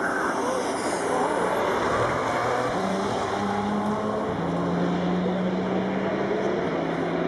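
Le Mans prototype race car accelerating out of a slow corner, its engine note rising in pitch as it pulls away, then settling into a steady engine drone.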